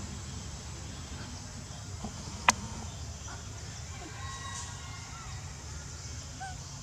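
Outdoor background with a steady low rumble and faint, short, high chirping calls, broken by one sharp click about two and a half seconds in.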